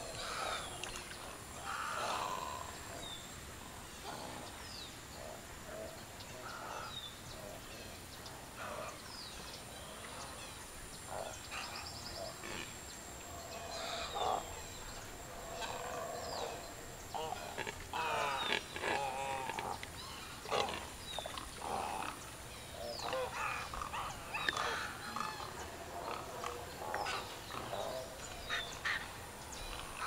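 A mixed flock of waterbirds calling: many short squawks and honks at irregular intervals, busiest in the second half, over a faint steady high-pitched tone.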